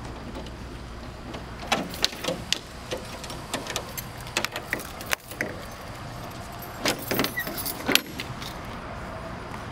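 Keys jangling, with a run of sharp, irregular metal clicks and clanks as the lock and latch on an enclosed cargo trailer's rear door are worked open.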